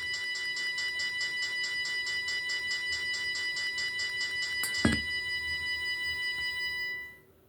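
A steady, high electronic tone with a rapid regular pulse, like a ringtone or alarm, with a sharp knock about five seconds in. The tone cuts off suddenly near the end.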